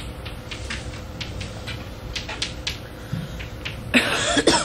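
Chalk tapping and scratching on a blackboard in short, irregular strokes, with a louder, harsher burst lasting about half a second about four seconds in, over a steady tape hum.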